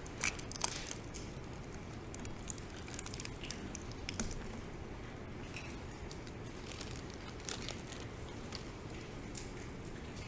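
Scattered soft crinkles and clicks of plastic packaging as individual communion servings are peeled open and the bread is taken, over a steady low room hum.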